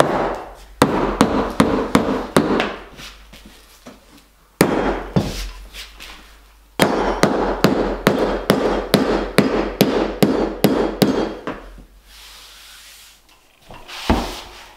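Mallet tapping click-lock plank flooring to seat the boards, in runs of quick sharp strikes about three or four a second, with pauses between runs and a single knock near the end.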